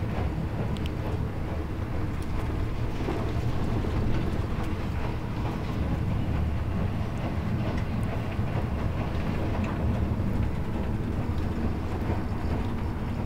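Steady low rumble of a moving passenger train heard from inside the carriage, with scattered faint ticks and rattles.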